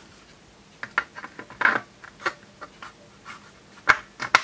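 A tissue rubbed in short wipes over a plastic display panel, then a few sharp clicks and knocks near the end as the recorder's black case cover is picked up and handled.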